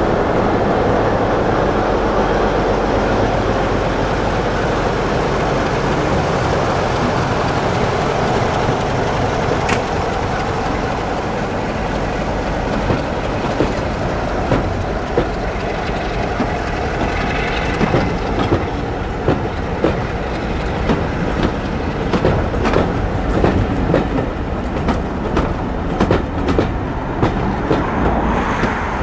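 A diesel-hauled train running on jointed track: a steady low engine rumble, then wheels clicking over the rail joints, the clicks growing more frequent from about halfway through.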